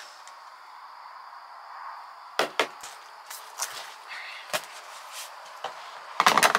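Knife and fish knocking and tapping on a plastic cooler lid while a red snapper is filleted: a few sharp, separate knocks through the middle, then a louder clatter of knocks near the end.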